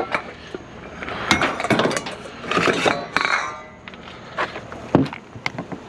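Hard objects clattering and clinking as they are handled, in a few bursts, with a couple of sharp knocks near the end.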